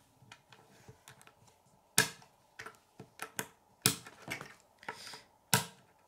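Plastic K'nex rods and connectors clicking and snapping together as they are assembled by hand: a run of irregular sharp clicks, the loudest about two, four and five and a half seconds in.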